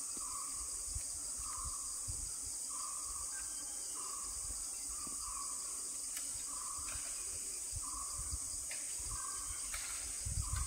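Forest insects droning in a steady high-pitched chorus, with a short mid-pitched note repeating about once a second. Low wind rumble on the microphone, stronger near the end.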